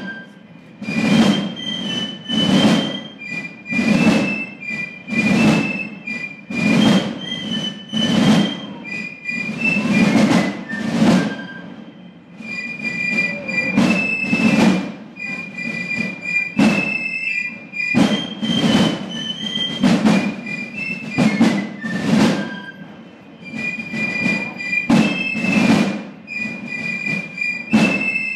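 Basel Fasnacht piccolos and Basel drums playing a march together: a shrill piccolo melody over heavy, regular drum strokes, about one to two a second, with short lulls in the drumming.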